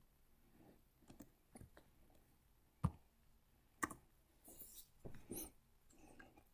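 A few sharp computer mouse clicks in a quiet room, the two loudest about three and four seconds in, followed by a faint rustling noise.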